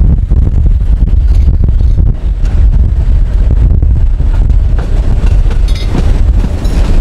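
Wind buffeting the microphone over the steady low noise of a passenger train.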